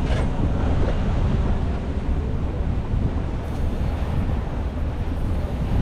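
Steady low rumble of wind buffeting the microphone, mixed with motor and water noise, on a small open boat under way.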